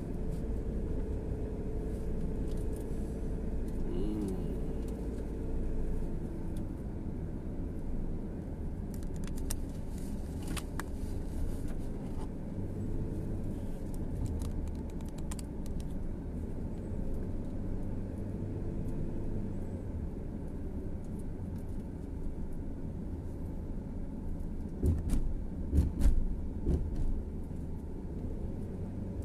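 Steady engine and road rumble inside a moving car's cabin, with scattered light clicks and rattles and a cluster of louder knocks near the end.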